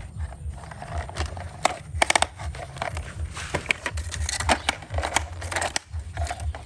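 Rustling and handling noise with many short sharp clicks and knocks, some in quick clusters, over a steady low rumble, as of small objects being picked up and moved about.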